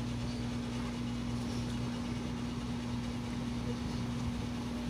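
Steady low electrical mains hum with a faint hiss, from the powered-up amplifier's power supply and toroidal transformer on the test bench.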